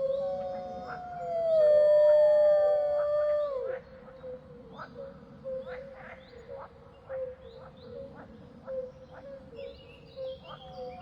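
Wolves howling in chorus: several overlapping long howls slowly falling in pitch. The first howl ends just after the start and a louder one runs until about four seconds in, after which the pack breaks into short yips about once a second.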